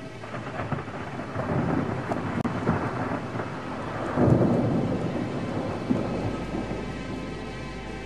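Thunder rumbling, building from about half a second in to its loudest about four seconds in, then rolling away.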